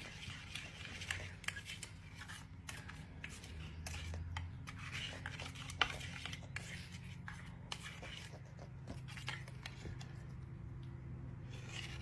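Faint, irregular clicks and crackles from a cockatoo working its beak and tongue, over a faint low hum.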